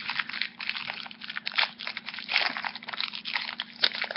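Crinkling of a foil Yu-Gi-Oh booster pack being handled and opened: a quick, uneven run of small crackles and snaps.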